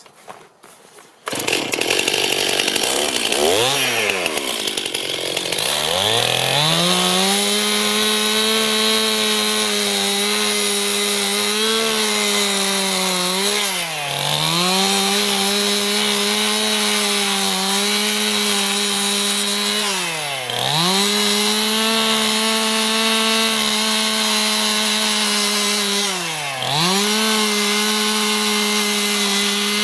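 Stihl MS 291 two-stroke chainsaw driving a debarker planer head, starting about a second in, revving up and down, then held at high speed as the planer strips bark from a poplar log. The engine note sags briefly and recovers three times, about six seconds apart.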